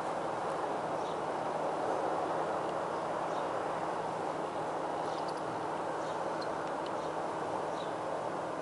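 Steady background hiss with a low hum, with a few faint, short high chirps scattered through it.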